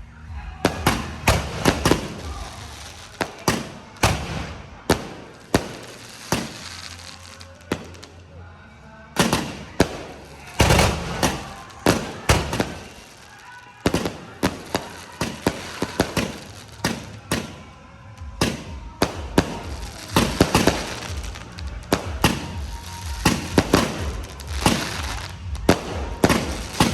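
Fireworks going off close by: a long run of sharp bangs at irregular intervals, often several a second, each with a short crackling tail, with brief lulls between volleys.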